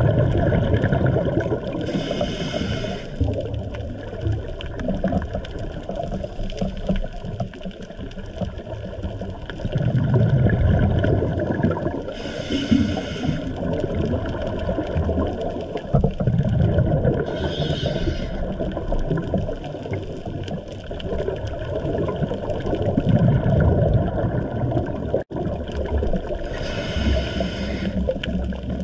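Scuba regulator breathing heard underwater: exhaled bubbles rising in a low bubbling rumble that swells and fades, and four short hisses as the diver inhales through the demand valve.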